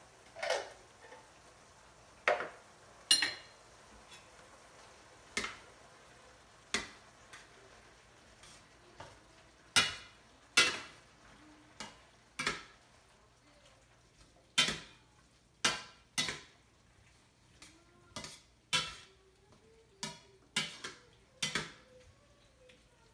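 A slotted metal spatula stirring and scraping through a stainless steel skillet of browned meat, tomatoes and black beans, knocking against the pan in sharp, irregular clacks that come more often in the second half.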